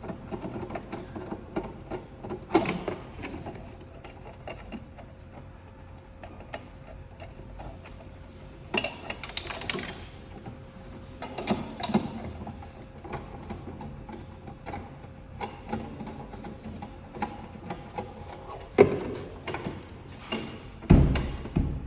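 Clicks, taps and knocks of metal parts and screws being handled and removed on a vending machine, with a couple of heavier thumps near the end. A faint steady hum runs underneath and stops about three quarters of the way through.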